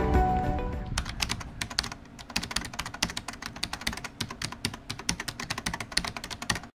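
Typing sound effect: a rapid run of key clicks, several a second, that stops abruptly near the end. Background music fades out in the first second.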